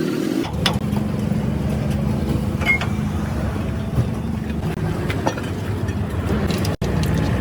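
An engine or motor running steadily with a low hum, with a few light knocks.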